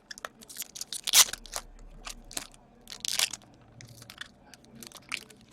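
Hockey trading card packs and cards being handled: a string of short crinkles, rustles and scrapes from pack wrappers and card stock, loudest a little over a second in and again about three seconds in.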